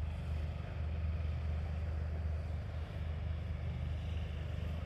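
Steady low hum of a running engine, unbroken throughout, with a faint even hiss above it.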